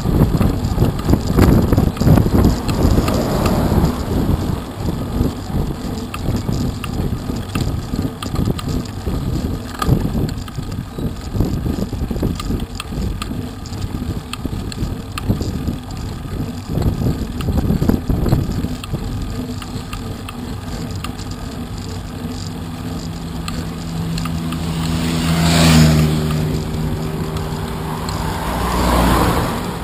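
Wind and road rumble buffeting a bicycle-mounted camera's microphone, gusting hardest in the first few seconds. Near the end a motor vehicle passes close by, its engine swelling and fading about 25 seconds in, and a second car comes past just before the end.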